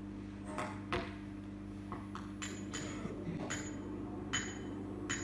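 About ten short, ringing metallic taps at uneven intervals, played through the hall's speakers over a steady low electrical hum.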